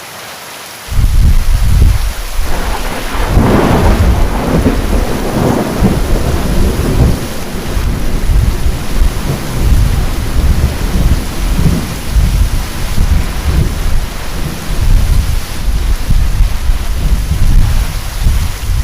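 Thunder over steady heavy rain. A loud, deep rumble breaks in about a second in, with a sharper crack a couple of seconds later, then keeps rolling and easing off near the end.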